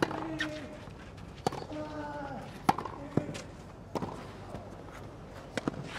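Tennis ball rally on a clay court: sharp racket strikes and ball bounces, roughly one every second, several in a row.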